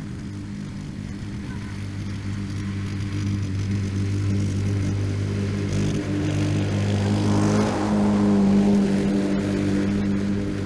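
Lawn-Boy mower's rebuilt 190cc Tecumseh engine running steadily while mowing, a constant drone that grows louder past the middle and eases a little near the end.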